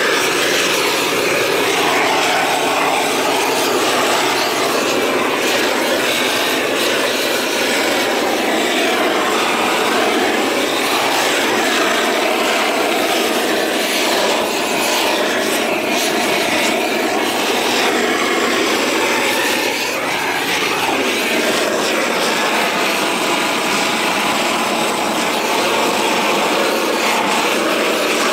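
Propane roofing torch burning steadily as its flame heats torch-on bitumen roofing felt, a continuous rush of flame with no breaks.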